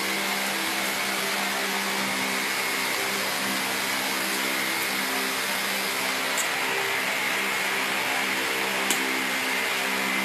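Steady whirring machine noise with a low hum and a thin high whine, and two faint clicks in the second half.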